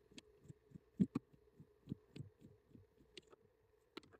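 Faint, irregular soft knocks and a few clicks from hands working under a car dashboard, unscrewing a small plastic trim bolt and handling the wiring harness. The loudest knock comes about a second in.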